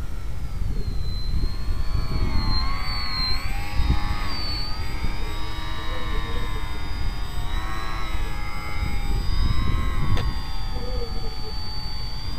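RC Zivko Edge aerobatic model airplane's motor running in flight, its pitch dipping and rising with throttle changes.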